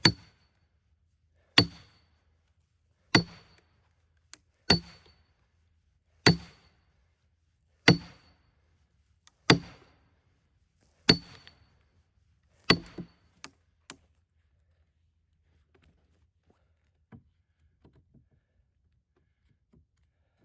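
Hammer driving a large steel splitting wedge into a cedar log to split it into rails: nine sharp, ringing metal blows about a second and a half apart, stopping about 14 seconds in.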